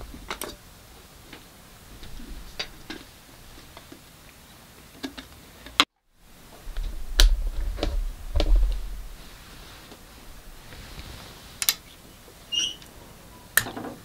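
Scattered small clicks and taps with a few low thumps, in a quiet small room; the sound drops out completely for a moment about six seconds in.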